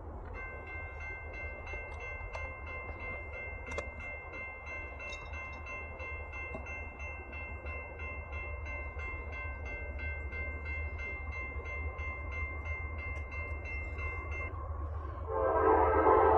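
Railroad grade-crossing bell ringing steadily with rapid, evenly repeated strokes as a freight train approaches. About fifteen seconds in, the approaching locomotive's air horn starts sounding loudly over it.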